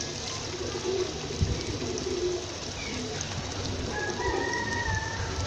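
A pigeon cooing in the background, several short low calls, over a steady hiss from the masala cooking in the pot. A brief higher whistling note sounds about four seconds in.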